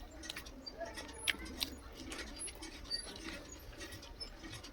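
Mouth sounds of someone eating curry and rice: irregular wet chewing clicks and lip smacks.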